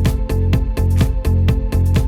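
Electronic background music with a steady, fast beat of about four strokes a second over a sustained bass line.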